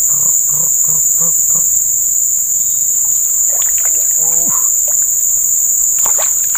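Loud, steady, high-pitched drone of an insect chorus, with a few sharp clicks near the end.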